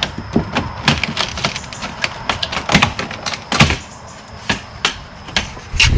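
Irregular sharp clicks, taps and knocks of vinyl J-channel trim being pried and pulled off a door frame, with the heaviest knocks near the middle.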